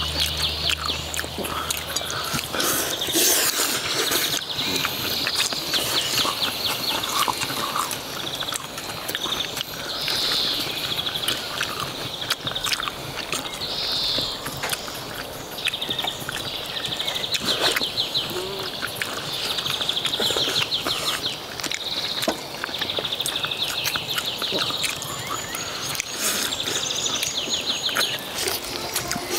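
Crunching and chewing of crispy battered fried chicken, with many sharp crackles throughout, over birds chirping and trilling in the background.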